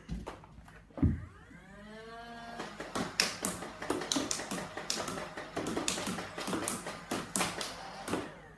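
Nerf Hyperfire flywheel blaster being fired. After a thump about a second in, the motors spin up with a rising whine. From about two and a half seconds in, the blaster fires a rapid string of darts, several shots a second, until near the end.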